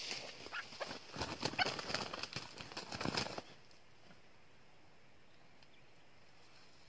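Rustling and crackling of dry stalks and leaf litter, with a red junglefowl rooster flapping and struggling in a foot snare as it is grabbed. The commotion stops suddenly about three and a half seconds in, leaving only a faint steady high hiss.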